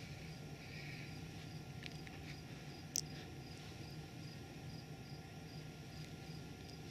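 Quiet room tone: a low steady hum under a faint high chirp that repeats evenly about two to three times a second, with a few soft clicks and one sharp click about three seconds in.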